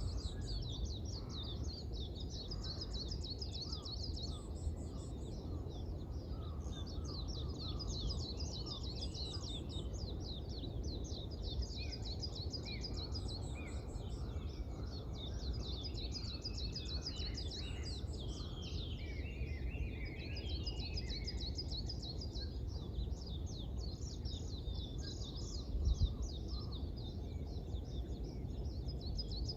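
Dawn chorus of small birds chirping and twittering almost without pause, high and fast-repeating, over a steady low background rumble. One short low thump comes near the end.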